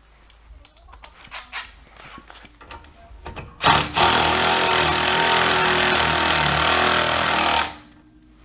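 A handheld power tool runs steadily for about four seconds with a buzzing whirr and cuts off abruptly, after a few light metal tool clinks.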